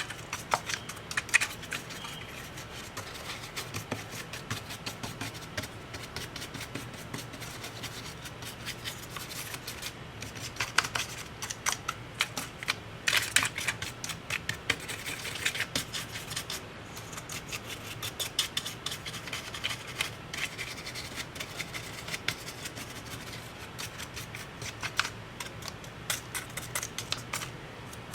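Small hand tools scratching, rubbing and clicking against the parts of an opened MacBook Pro laptop being taken apart and cleaned, in dense irregular strokes with a faint low hum underneath.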